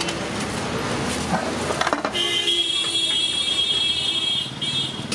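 Roadside street noise with a high, steady electronic alarm tone that comes in about two seconds in and holds for about two seconds. A short metal clink sounds just before it.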